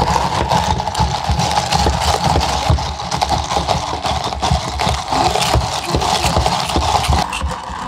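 Ice rattling and clicking inside a plastic cup as an iced caramel macchiato is stirred quickly with a long bar spoon through the dome lid, a fast continuous clatter with dull knocks against the cup.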